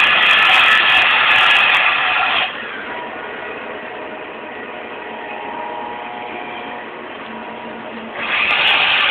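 Freight train cars rolling past on steel rails: a loud grinding, rubbing noise with high steady tones in it. It drops away about two and a half seconds in and comes back loud near the end.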